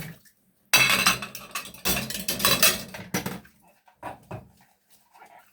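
Washing up at a kitchen sink: dishes and cutlery clattering, with a loud rush of running water that starts sharply under a second in and stops after about two and a half seconds.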